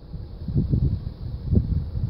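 Wind buffeting the microphone in irregular low rumbling gusts.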